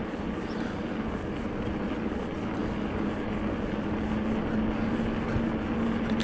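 Rockrider E-ST 900 electric mountain bike being ridden: a steady low hum from its assist motor over tyre and wind noise, the hum growing a little louder toward the end.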